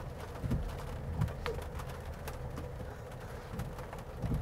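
GMC Hummer EV pickup crawling up a steep dirt incline, its augmented propulsion sound giving a low, V8-like hum that swells and fades unevenly, over a faint steady whine and scattered light ticks.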